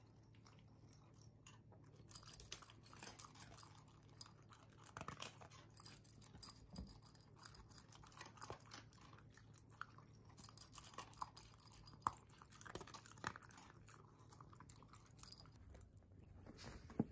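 A Shiba Inu crunching dry kibble, faint and irregular, starting about two seconds in.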